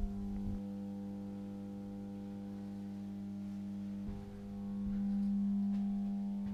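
Steady electrical hum from the powered-up equipment inside an ESh-11/70 walking dragline's machine house: a deep drone with several overtones that swells about four seconds in, with a few soft thumps.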